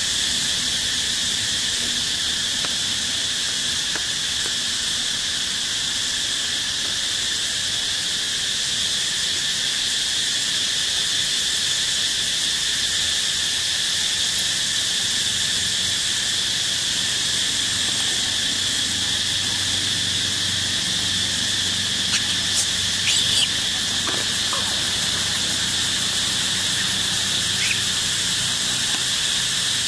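Steady chorus of insects droning at an even high pitch throughout, with a few short high squeaks about three-quarters of the way in and one more near the end.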